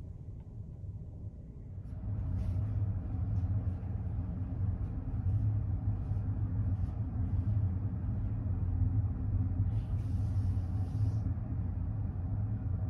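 Steady low hum of a ferry's onboard machinery and ventilation heard from inside the ship, growing louder about two seconds in. A few faint clicks, and a short hiss about ten seconds in.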